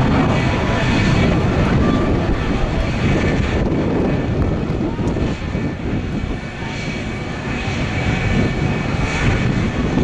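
Jet engine noise from an aerobatic display jet flying overhead: a loud, steady rush that eases briefly past the middle and then builds again.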